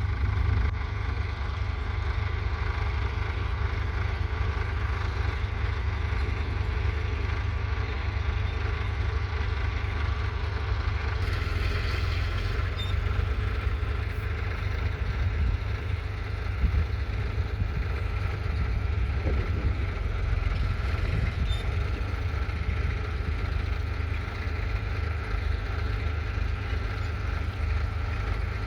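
The 1970 Ford 3000 tractor's 2.9-litre three-cylinder diesel engine running steadily while working a two-furrow mounted plough, with a brighter hiss coming in about eleven seconds in.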